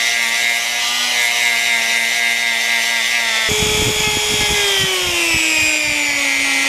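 Dremel-type rotary tool whining steadily as a small polishing pad buffs a painted motorcycle wheel spoke. About halfway in, the sound cuts to a higher whine that slowly falls in pitch and then holds, with the pad scuffing against the spoke underneath.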